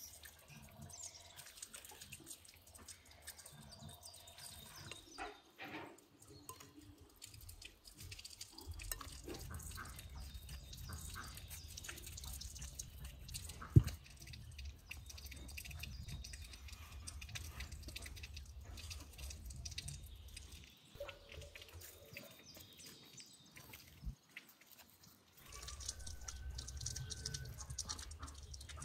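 Wet squelching and light tapping of raw beef being handled on a wooden cutting board, with a bird chirping faintly. A single sharp knock comes about 14 seconds in, and a low rumble comes and goes.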